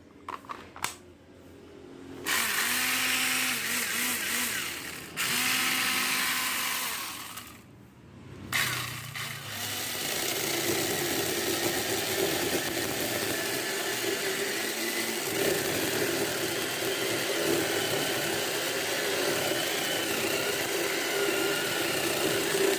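Home-built cordless electric chainsaw, driven by a converted motorcycle starter motor through an angle-grinder chainsaw adapter, running with a steady whine: two short runs, then a long one from about eight seconds in. The motor turns too slowly, so the saw does not work at full power.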